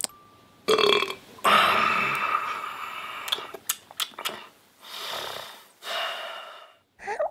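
A man burping loudly over and over, a string of separate burps with one long drawn-out burp about a second and a half in.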